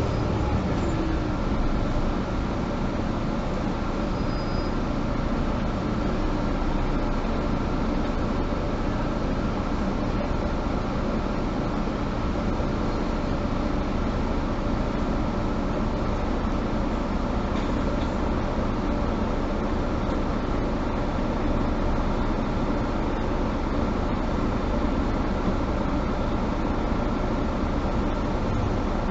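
Mercedes-Benz Citaro G articulated bus driving at a steady speed, heard from inside the passenger cabin: an even engine drone with road and running noise, without a change in pace.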